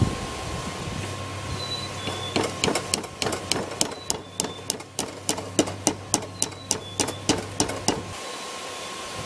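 Hand hammer striking a red-hot steel rod on an anvil, drawing it out into a thin hook: a steady run of about three ringing blows a second starting about two seconds in and stopping near the end. A steady low hum lies underneath and cuts out near the end.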